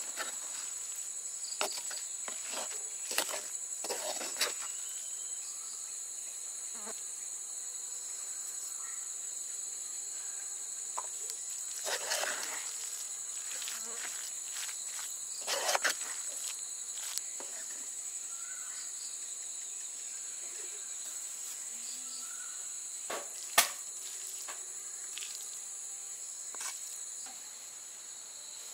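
A steady high-pitched insect chorus, like crickets trilling, runs throughout. Over it come occasional scrapes and taps of a spoon stirring in a clay pot, and a single sharp knock near the end.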